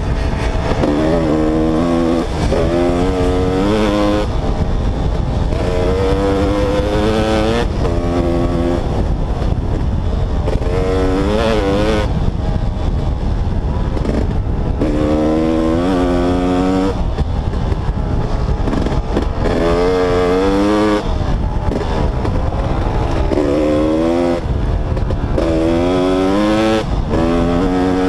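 Two-stroke dirt bike engine being ridden, its pitch climbing and dropping over and over as the throttle is opened and shut, over a constant low rumble.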